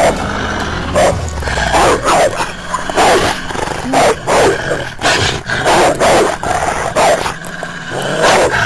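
Canines fighting: a fast run of snarls, growls and barks, about two short bursts a second.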